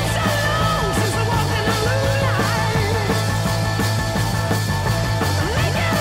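Rock music with a steady low bass and a wavering lead melody that bends in pitch.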